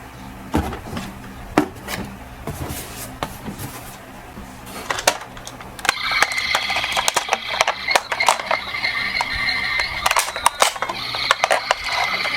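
Toy die-cast ambulance and bus being handled and rolled on a slope, with scattered light clicks and knocks. About six seconds in, a dense rattling starts along with a steady high-pitched tone.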